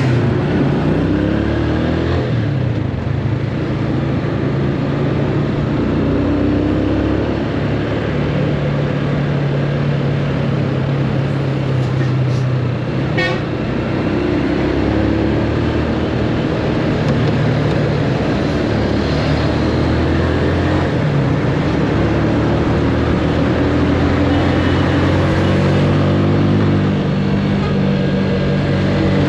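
Motorcycle engine running under way, its pitch rising and falling as the rider accelerates and eases off, over steady wind and road noise.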